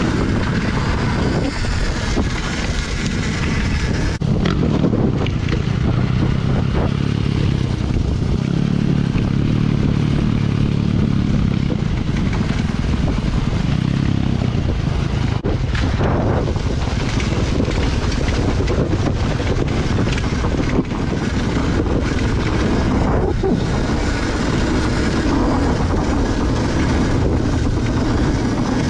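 Dirt bike engine running under way, its note rising and falling as the throttle opens and closes on rough ground, heard close from the rider's own bike.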